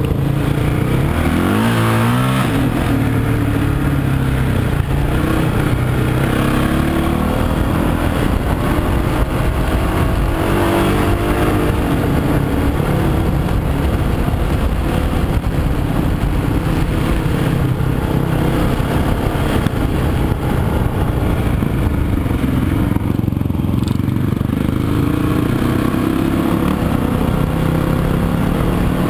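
Off-road dirt bike engine running hard on a dirt trail, revving up and down as the throttle is worked, with rising sweeps in pitch about two seconds in and again around ten seconds.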